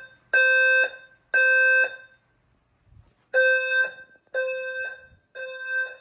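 Temporal-three fire alarm evacuation tone from the speakers of a Notifier NFS2-3030 voice evacuation system. A steady tone sounds in half-second pulses: two pulses, a pause of about a second and a half, then three more pulses.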